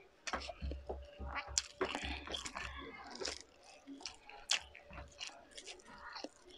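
Close-miked chewing and wet mouth sounds: irregular sharp clicks and soft squishes as food is chewed, with fingers picking at food on the plate.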